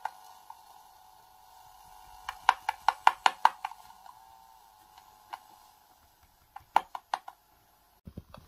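Sharp clicks and taps picked up by a handheld electret microphone and played back through a homemade audio circuit's small speaker: a quick run of about six clicks two to three seconds in and four more near seven seconds, over a steady hum from the speaker that fades out about six seconds in. A few low thumps come near the end.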